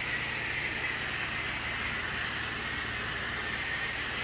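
Pressure washer spraying in a steady hiss over the steady hum of its engine, pre-treating concrete with house-mix cleaning solution.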